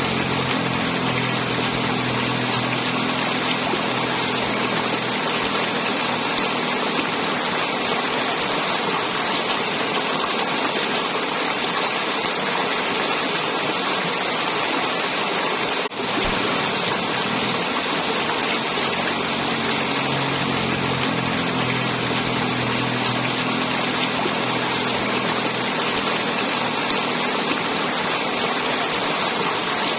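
River water flowing and gurgling steadily, with a brief break in the sound about halfway through.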